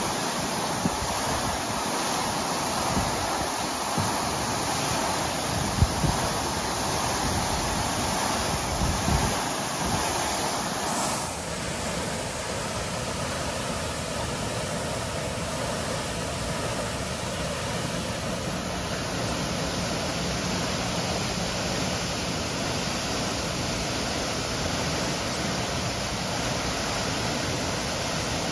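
Water gushing from a broken fire hydrant: a steady rushing of the high jet and its spray falling on the pavement. For about the first ten seconds, wind and spray buffet the microphone with a few thumps. About eleven seconds in, the sound changes to a smoother, steadier rush.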